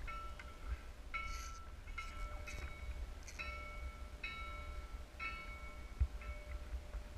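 Bell buoy ringing at uneven intervals, roughly once a second, each strike a metallic ring holding several pitches, as the waves rock its clappers against the bell. Wind rumbles on the microphone throughout, and there is a single sharp knock near the end.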